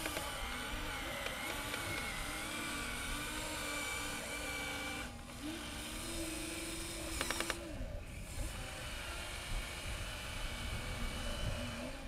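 Electric motors and gearboxes of Huina radio-controlled excavators whining as they work the boom and bucket, the pitch stepping and gliding up and down as the moves change. A short burst of rapid clicking about seven seconds in.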